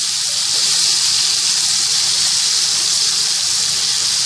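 Chicken and spice paste sizzling in hot mustard oil in the pan, a steady loud hiss as the little water just added hits the hot fat.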